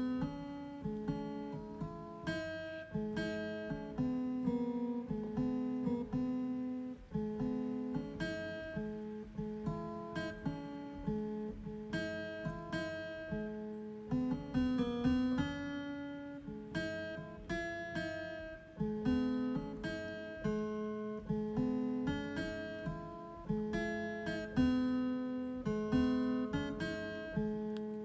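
Background music played on a home keyboard: a plucked, guitar-like melody, several notes a second, each note fading quickly.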